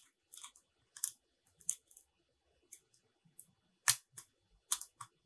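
Irregular clicks and scrapes of two 3D-printed plastic tubes being screwed together on their printed threads, the tight thread catching as it turns; the loudest snaps come about four seconds in.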